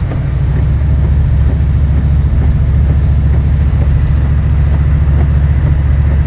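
A car driving: a loud, steady low rumble of engine and road noise.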